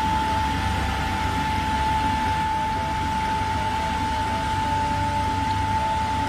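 Roots truck-mounted road sweeper on an Eicher chassis running while its rotating side brush sweeps the street: a steady machine noise with a low rumble and a constant whining tone.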